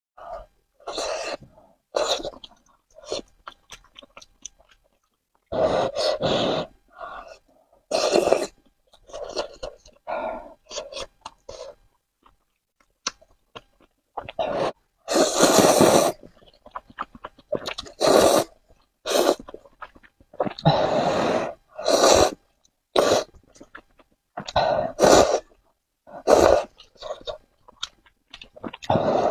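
Close-miked eating sounds of a person eating spicy noodles: chewing and mouth sounds in irregular bursts with short silences between.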